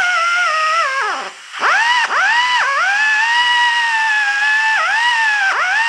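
Pneumatic die grinder with a small abrasive disc whining at high speed on steel, its pitch sagging each time the disc is pressed into the work and climbing back as it eases off. About a second in it winds down briefly and spins back up. The grinding is cleaning the steel surface ready for a weld.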